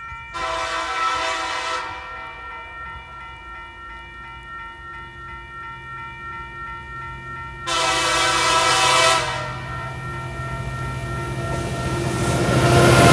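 TasRail TR class diesel locomotive sounding its horn twice, two long chord blasts about six seconds apart, on approach to a level crossing. Its engine hums steadily underneath, and the engine and the rumble of wheels on rail grow louder near the end as the locomotive reaches the crossing.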